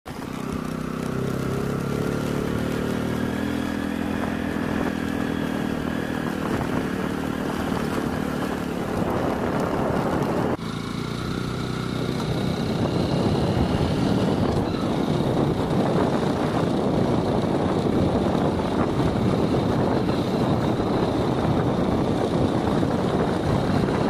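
For about ten seconds a motor's steady pitched drone sounds over rushing water. Then, after a sudden cut, only the waterfall's steady dense rush is heard, somewhat louder.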